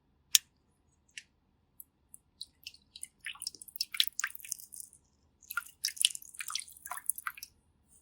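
Close-miked ASMR makeup sounds: a few separate crisp clicks, then two runs of quick, crackly, squishy sounds lasting about two seconds each.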